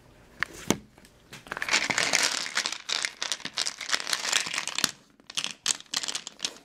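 Plastic polyhedral dice clattering into a wooden dice tower: two single clicks, then a dense rattle of many dice tumbling for about three and a half seconds, then a few scattered clicks.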